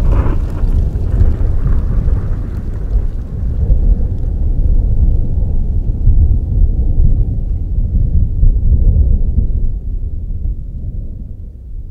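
A deep, steady rumble with a light hiss on top early on, fading away over the last couple of seconds.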